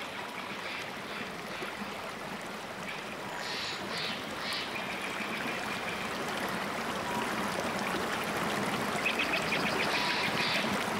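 Creek water rushing steadily over shallow riffles, with a few short high chirps scattered through it and a quick run of them near the end.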